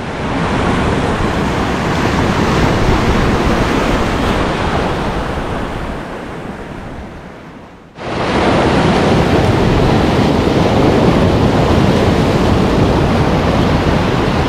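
Waves breaking and washing over a rocky, kelp-covered shore, with wind buffeting the microphone. The surf noise dies down over a few seconds, then comes back at full strength abruptly about eight seconds in.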